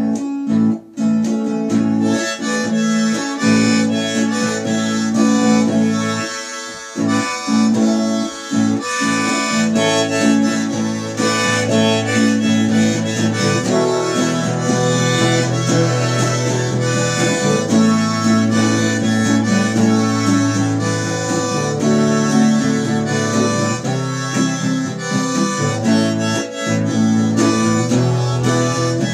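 Harmonica playing an instrumental break over strummed acoustic guitar in a folk-rock song.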